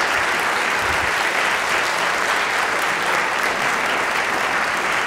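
A large theatre audience applauding, with steady, sustained clapping.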